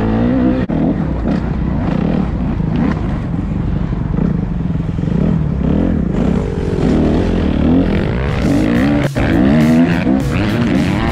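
Motocross bike engine revving up and down as it is ridden, its pitch rising and falling every second or so.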